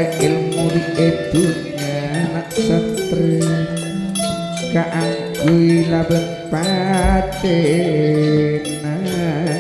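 Gamelan music: bronze metallophones struck in a steady pulse of ringing notes, with a man singing into a microphone in a wavering, ornamented line over the second half. A deep low stroke sounds about seven seconds in.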